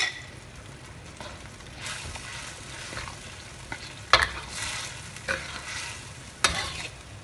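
Metal spatula stirring a thick starch-thickened gravy in a wok, scraping the pan with three sharp clanks: one at the start, one about four seconds in and one about six and a half seconds in. A soft sizzle of the hot sauce runs underneath.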